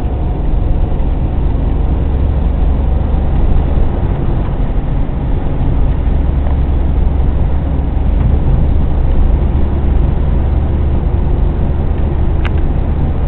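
Nissan 240SX's 2.4-litre KA24DE four-cylinder engine running steadily, with a brief click near the end.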